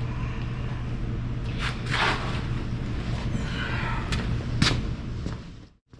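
A few sharp metal clanks and knocks from tools being handled, the loudest about four and a half seconds in, over a steady low hum; the sound drops out briefly just before the end.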